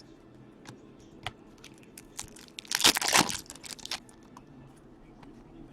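Trading cards and a foil pack wrapper being handled: faint clicks and rustles, with a louder crinkling rustle about three seconds in.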